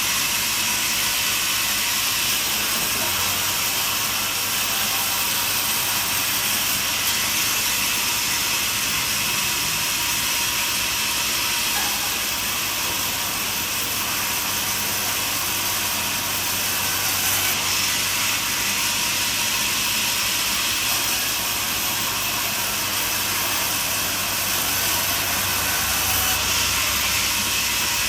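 Portable band sawmill running through a cut, a steady, hissing noise with little low end that holds level throughout.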